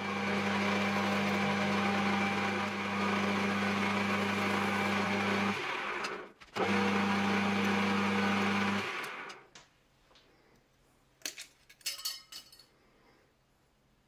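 Metal lathe running steadily while the back face of a small turned part is faced with a cutting tool, then polished with abrasive cloth against the spinning work. The motor's steady hum breaks off briefly about six seconds in, runs again, and stops near nine seconds, followed by a few light clicks.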